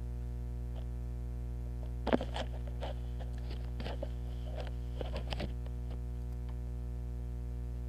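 Contact-microphone recording from a mic buried in snow: a steady electrical hum with a cluster of crackling, crunching clicks from about two to five and a half seconds in. The loudest is a sharp crack about two seconds in.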